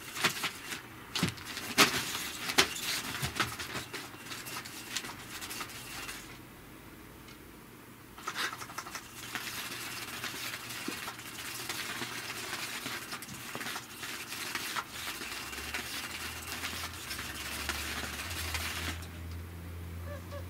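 Catch Me If You Can 2 electric cat toy running: its motor-driven wand sweeps around under the fabric cover with a scraping rustle and sharp clicks. It pauses for a couple of seconds about six seconds in, then runs steadily again until it stops near the end.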